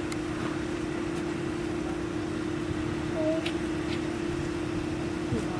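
Steady mechanical hum at one constant pitch over outdoor background noise, with a few faint ticks.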